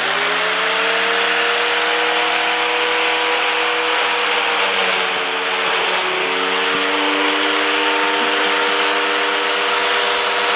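Electric angle grinder with a homemade paper disc, switched on and running at full speed with a steady whine and hiss. About five seconds in, its pitch sags briefly as the paper disc is pressed into a banana, then it settles back to speed.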